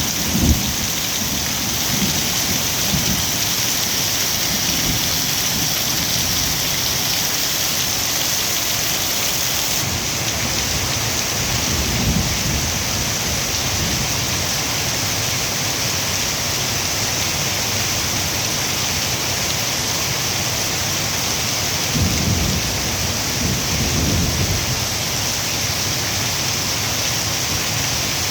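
Heavy monsoon rain pouring down in a steady, dense hiss, with low rolls of thunder rumbling several times: near the start, about halfway, and again near the end.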